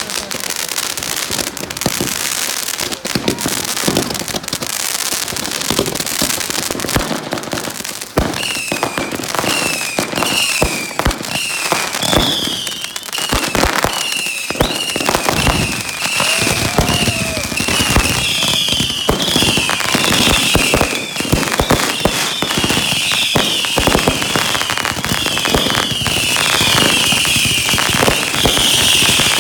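Fireworks going off nonstop: a dense mix of bangs, pops and crackling. From about eight seconds in, short falling whistles repeat about once or twice a second over the bangs.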